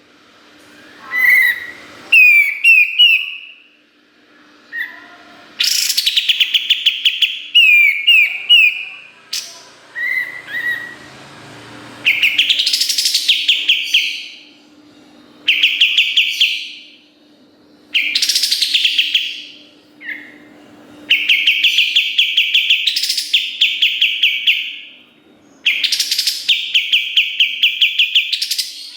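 White-shouldered triller (kapas tembak) singing: phrases of rapid trills and quick sweeping notes, each one to three seconds long, repeated with short pauses. A faint steady hum runs underneath.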